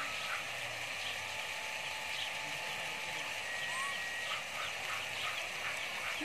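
Outdoor background of birds calling over a steady hiss: scattered short chirps, then a quick run of short repeated calls, about four a second, in the second half.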